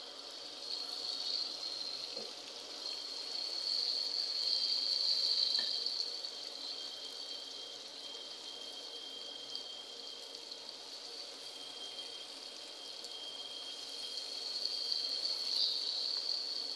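Chicken pieces frying in hot oil with onions in a karahi, a steady sizzle that grows louder about four to six seconds in and again near the end as more pieces go in and are stirred.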